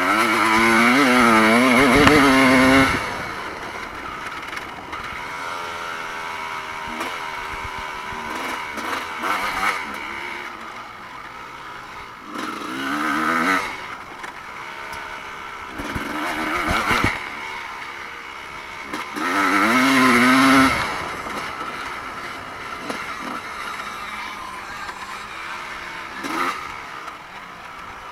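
Vintage evolution-era motocross bikes racing, their engines revving up and down as riders work the throttle over the track. The loudest passes are at the start and again about two-thirds through, with more distant bikes running between.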